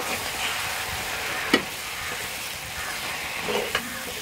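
Masala with potato and drumstick (moringa) pieces sizzling in a metal kadhai, a little water just added, as a ladle stirs it through. A sharp clink of the ladle against the pan about one and a half seconds in, and a softer knock near the end.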